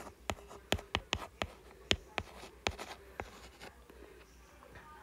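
Stylus tip tapping and clicking on a tablet's glass screen as a word is handwritten: about ten sharp, irregular taps, stopping about three seconds in.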